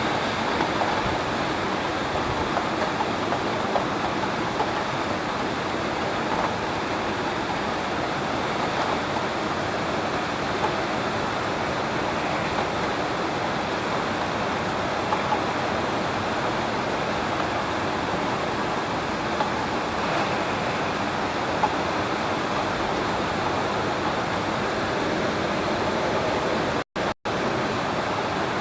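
Heavy rain pouring steadily in a rainstorm, a dense even hiss, broken by two very short gaps of silence near the end.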